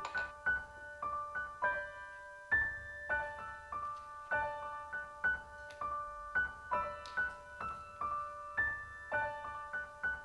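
Soft solo piano score playing a gentle, repeating figure of single high notes, about two notes a second.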